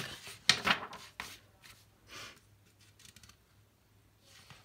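A picture book's paper page being turned by hand: a quick rustle and rub of paper about half a second in, followed by a few faint soft rustles.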